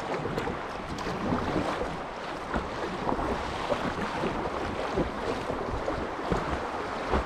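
Fast river water rushing and splashing around an inflatable kayak, with occasional short splashes, and wind on the microphone.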